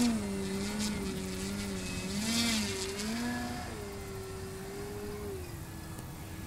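Radio-controlled Extra 330SC aerobatic model plane in flight, its motor and propeller note rising and falling in pitch as the throttle changes through manoeuvres. The note swells loudest about two and a half seconds in, holds steady for a moment, then drops lower near the end.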